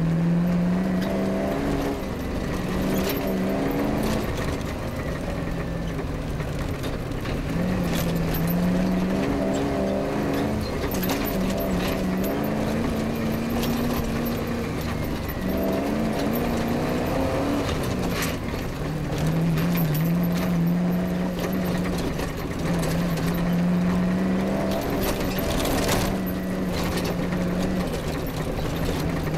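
Off-road rally car's engine running hard under load, its note climbing and then dropping in steps again and again, with scattered knocks and rattles from the car over rough ground.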